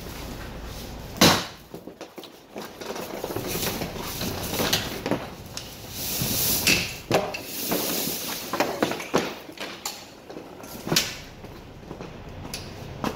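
Knocks, scrapes and a stretch of hissing rustle as a heavy plastic tarp is handled on the hoop frame of a covered trailer. The loudest knock comes about a second in, the rustle swells around the middle, and another sharp knock comes near the end.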